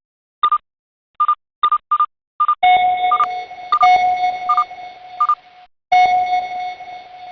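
Electronic beeps: about five short, evenly pitched high beeps in quick succession, then a steady lower tone with a hiss under it and more high beeps over it, which cuts out for a moment about six seconds in and comes back.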